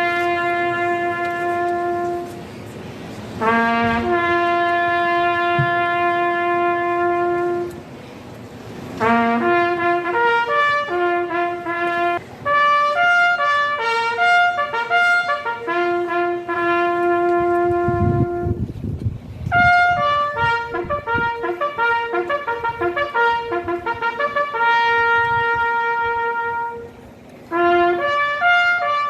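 Trumpet-led brass music: a melody of long held notes and quicker runs, in phrases separated by short pauses.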